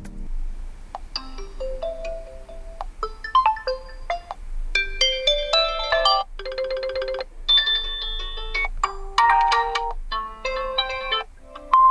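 Realme C30's built-in alarm tones previewed one after another: about seven different short electronic melodies of chiming notes, each a second or two long and cut off as the next one starts.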